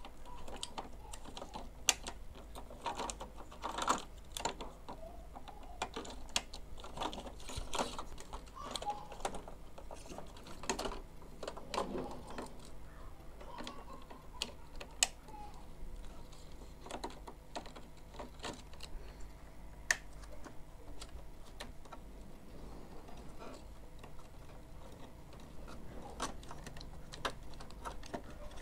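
Irregular light clicks and taps of small plastic parts being handled: ink tubes and ink damper connectors being worked and pressed into place on the carriage of an Epson ink-tank printer.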